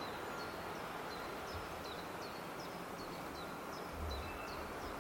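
Outdoor ambience: a steady background hiss with a small bird repeating a short high note about twice a second, and a few low rumbles near the end.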